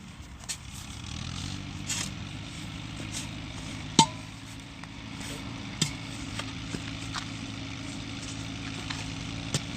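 A motor running steadily, with several sharp, short firecracker bangs over it; the loudest comes about four seconds in.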